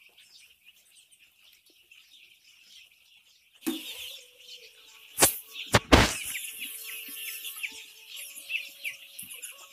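A flock of week-old chicks peeping continuously, faint at first and louder after about three and a half seconds. Two loud knocks come in quick succession about five seconds in.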